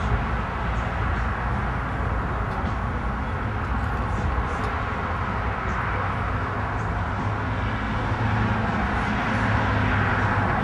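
A vehicle on the move, with a steady low engine hum and road rumble.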